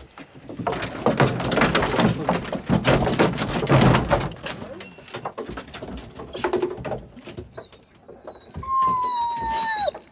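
Hunting hounds being let out of a pickup's dog box: a clatter of knocks and thumps as the door opens and the dogs scramble out. Near the end a hound gives one long howl that drops in pitch as it ends.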